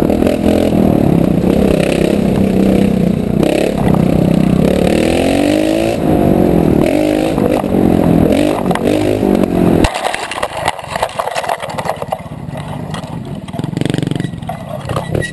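Trials motorcycle engine revving up and down in short bursts as it climbs a rocky trail. About ten seconds in, the engine sound drops away sharply, leaving a run of close clattering and scraping knocks.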